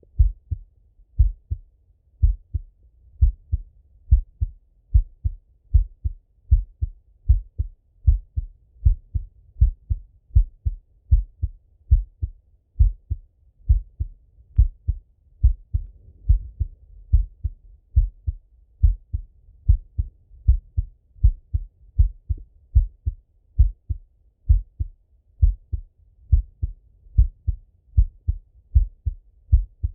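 A man's heartbeat heard through a Littmann stethoscope: a steady rhythm of paired low thumps, the lub-dub of each beat.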